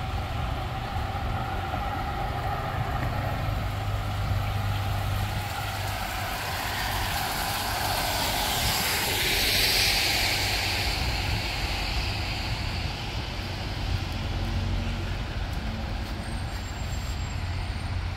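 Traffic on a wet street, a steady low rumble of engines. About halfway through, the hiss of tyres on wet pavement swells and fades as a vehicle passes.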